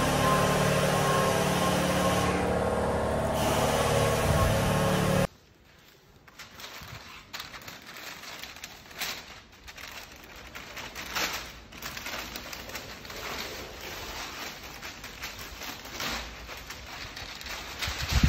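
A steady machine hum with several held tones runs for about five seconds and then cuts off abruptly. After it, masking paper crackles and rustles as it is peeled off fresh paint, and a low thump comes at the very end.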